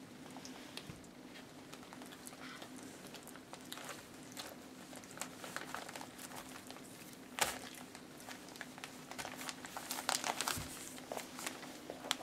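Newspaper crinkling and rustling as young puppies crawl over it, with scattered sharp crackles: the loudest about seven and a half seconds in and a busy cluster around ten seconds. A faint steady hum underneath.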